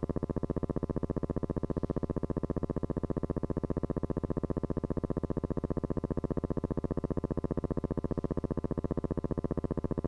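A steady buzz made of rapid, even pulses, with no change in pitch or loudness.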